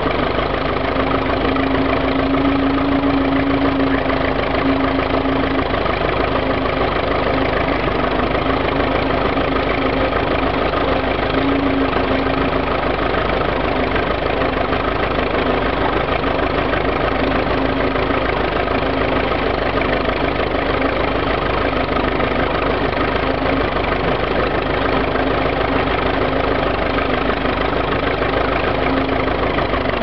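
Ferguson TED20 tractor's four-cylinder engine running steadily under load as it pulls a single-furrow plough through grass sod.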